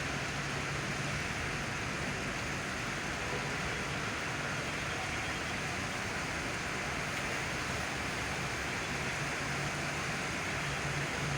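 Steady rain falling, an even hiss, with a faint low hum underneath.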